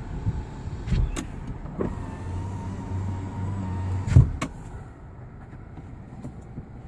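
Car's electric power window motor running for about two seconds with a steady hum and faint whine, ending in a loud thump as the glass reaches its stop. A couple of sharp clicks come about a second in.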